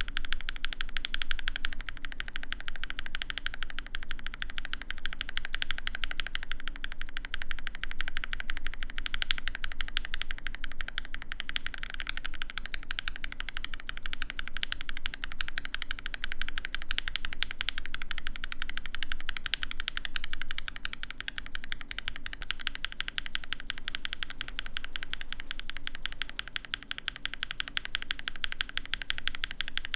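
Fast, continuous typing on a mechanical keyboard fitted with Zaku long-pole linear switches: a steady rattle of keystrokes bottoming out.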